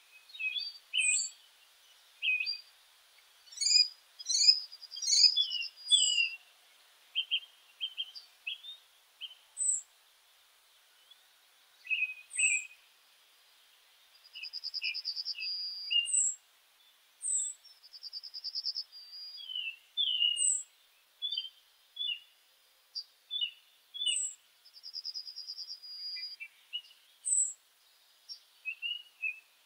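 Meadow birds calling and singing: a steady series of short, high chirps and whistles, with a few rapid trilled phrases of about a second and a half each.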